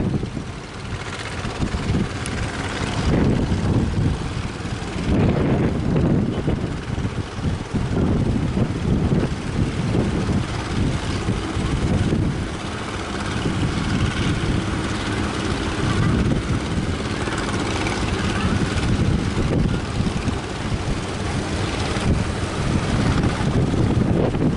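Strong gusting wind buffeting the microphone, a loud low rumble that swells and eases from moment to moment.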